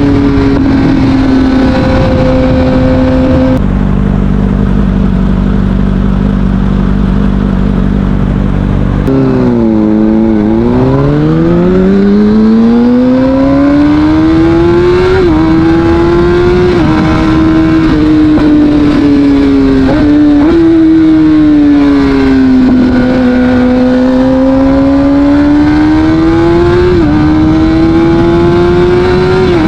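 Kawasaki Ninja ZX-6R's inline-four engine through an Akrapovic exhaust: the revs ease down, it idles steadily for about five seconds, then it pulls away with the revs climbing and dropping at each upshift, then runs on with the revs rising and falling gently.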